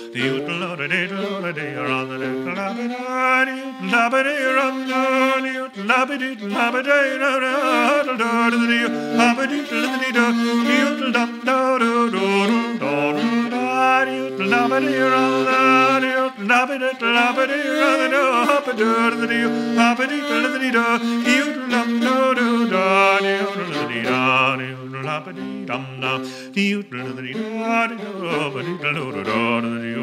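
Fiddle playing a slow, ornamented melody over a steady held low drone note, in a traditional Irish style.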